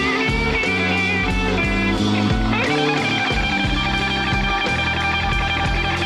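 Blues-rock music: an electric guitar plays a sustained lead line, bending a note upward about two and a half seconds in, over a stepping bass line and drums.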